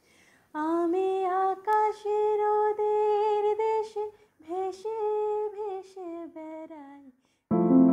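Soundtrack music: a woman's voice sings a wordless, unaccompanied melody in long held notes with vibrato, phrase by phrase. A piano comes in near the end.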